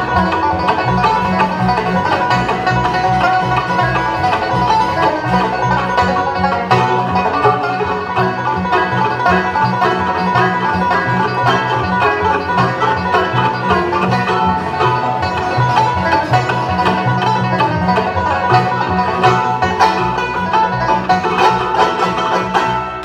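Bluegrass band playing live: a Sorensen Sprite two-point mandolin, banjo, acoustic guitar and upright bass picking a fast instrumental together.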